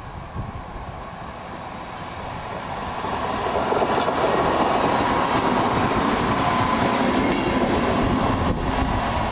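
'Red Hen' diesel railcar 405 passing close by, its engine and wheel noise building until it is loud about three to four seconds in. A few sharp clicks come from the wheels over the rail joints.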